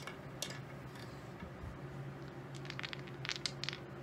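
Small dice clicking as they are handled on a craps layout: one light click near the start as the wooden stick pushes them back, then a run of quick small clicks in the last second and a half as the dice are gathered for the next throw, over a low steady hum.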